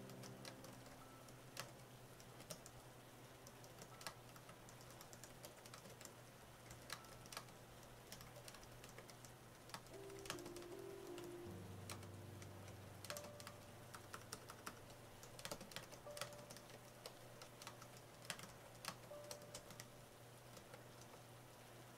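Quiet, irregular key clicks from typing on an AlphaSmart portable word-processor keyboard, busier in the second half, over faint piano background music.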